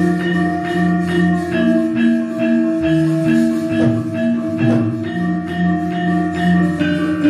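Javanese gamelan ensemble playing: struck bronze metallophones and gongs sound an even beat of ringing notes that change pitch every half second or so.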